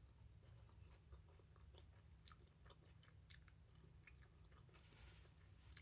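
Faint chewing of food, with soft scattered mouth clicks.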